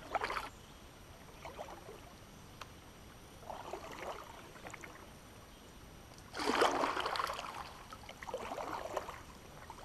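Kayak paddle strokes splashing and dripping in slow river water, four strokes a couple of seconds apart, the loudest a bit past the middle.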